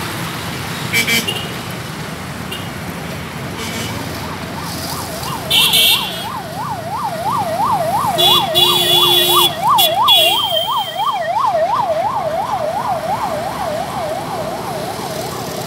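Emergency vehicle siren in a fast yelp, rising and falling about four times a second. It comes up a few seconds in and fades out near the end, over steady traffic noise with a few short honks.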